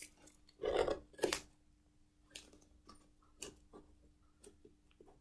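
A cardboard parcel being handled for opening: two loud scraping, rustling noises about a second in, then light clicks and taps.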